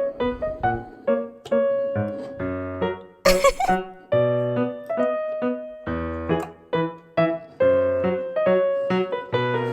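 Background music played on piano or keyboard: short, bouncy notes in a steady rhythm, with a brief hiss-like sound effect about three seconds in.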